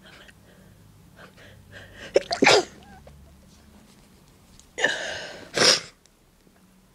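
A person's breathy sneeze buildup with short catching breaths, then a sneeze about two seconds in, followed by two more sneezes in quick succession about five seconds in.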